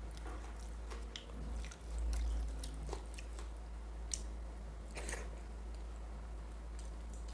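Close-miked eating: wet chewing and squishy mouth sounds of mutton curry and rice, with scattered small clicks and smacks. There is a dull low bump a little after two seconds.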